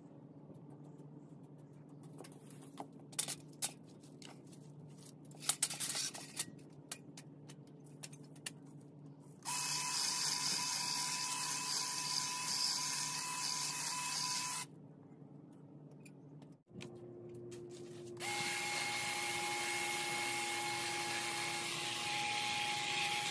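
Electric hedge trimmer running in two steady spells, each with a whine: one of about five seconds starting some ten seconds in, and another through the last five seconds as it cuts into an ivy hedge. Before that there are a few seconds of scattered clicks and rustling.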